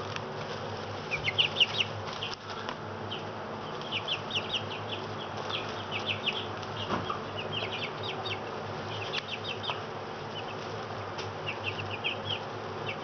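Young chicks peeping in quick clusters of short, high cheeps every second or two, over a steady low hum.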